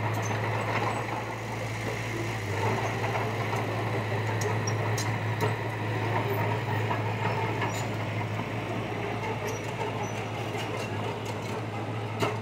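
Diesel engine of heavy construction machinery running steadily, with a few light clicks and a sharp knock near the end.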